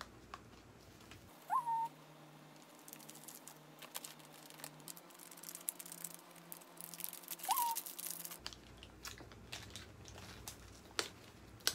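Paper fries bag crinkling and rustling faintly as it is handled and shaken to coat the fries in barbecue seasoning. A short rising chirp sounds twice, about a second and a half in and again about six seconds later.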